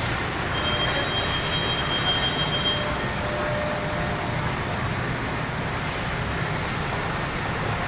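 Steady mechanical rumble and hiss of machinery running, with a thin high whine for about two seconds near the start.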